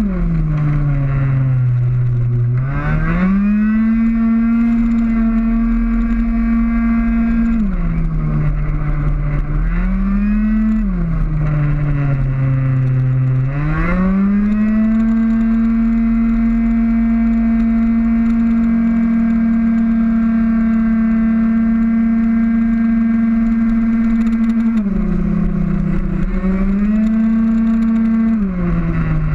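Racing scooter's two-stroke single-cylinder engine at full throttle, heard from on board. It holds a steady high pitch on the straights and drops in pitch as the rider backs off for corners, then climbs back up as he accelerates out. This happens three times in the first half and twice near the end.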